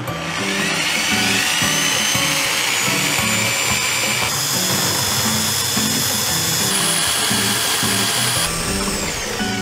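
Immersion blender motor whining as it spins up about half a second in, then running steadily in beaten eggs, its pitch shifting a few times before it winds down near the end. Background music with a steady beat plays underneath.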